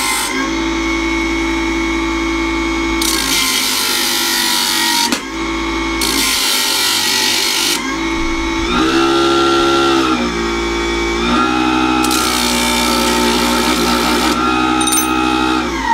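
Small motor of a mini stainless-steel table saw whining steadily as it spins a sanding disc on its rear shaft. There are several stretches of harsh grinding as a wood block and then a steel rod are pressed against the disc, the rod throwing sparks. The motor's pitch dips and recovers once near the middle, then starts to wind down near the end.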